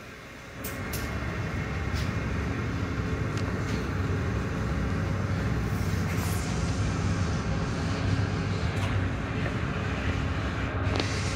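Tunnel car wash machinery running: a steady low motor hum under the hiss of water spray. It comes up about half a second in, with a few light clicks.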